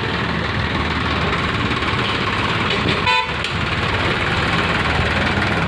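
A vehicle engine running steadily, with one short horn toot about three seconds in.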